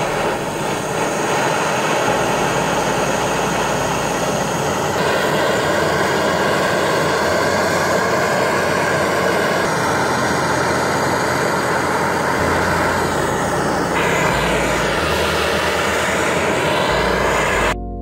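A hand-held gas blowtorch flame hissing steadily as it heats a small steel blade, with slight shifts in tone at a couple of edits. It cuts off abruptly near the end, where music begins.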